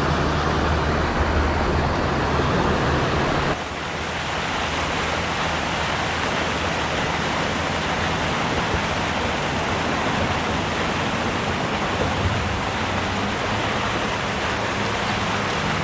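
Steady rush of water pouring over a concrete canal spillway. It drops a little in level about three and a half seconds in.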